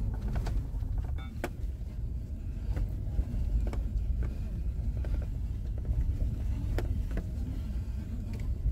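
Inside the cabin of a SsangYong Rexton Sports Khan pickup driving on a rough dirt track: a steady low rumble from the engine and tyres, with scattered clicks and knocks as the truck goes over bumps.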